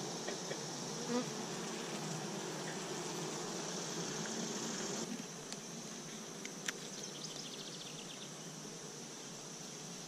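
Honeybees buzzing in a steady hum around an opened hive and its frames of comb. The sound drops a little about halfway through, and a few light clicks follow.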